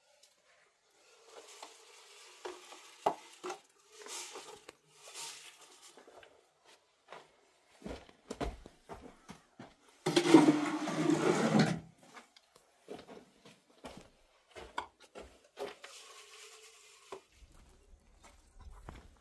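Scattered light knocks and clinks of objects being handled, with one louder noisy stretch of about two seconds in the middle.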